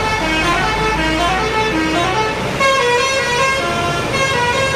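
Basuri telolet multi-tone bus horn playing a quick tune, its notes stepping from pitch to pitch several times a second, over a low engine rumble.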